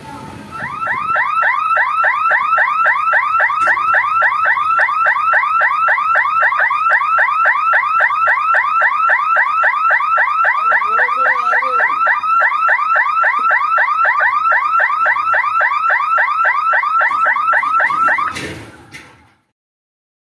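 Electronic warning alarm of a railway level-crossing gate, a rising chirp repeated rapidly, about four or five times a second, sounding while the barrier boom lowers to close the road. It cuts off abruptly near the end.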